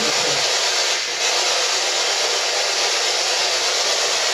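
Loud, steady electronic static hiss with no other sound in it, dipping slightly about a second in.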